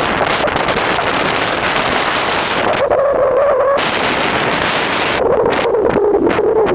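Strong storm wind buffeting the microphone, with two drawn-out whining tones, one about three seconds in and a longer one in the second half.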